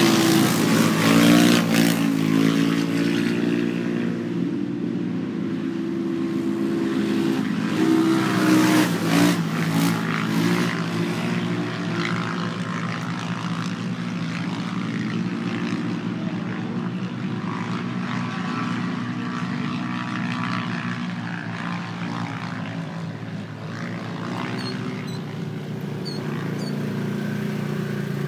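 Engines of 570-class UTVs running on a race track, their pitch rising and falling as they rev in the first seconds and again about eight to eleven seconds in, then running steadier.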